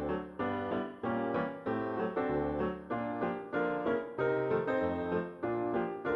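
Background piano music: chords and notes struck at a steady pace of about two a second, each one fading before the next.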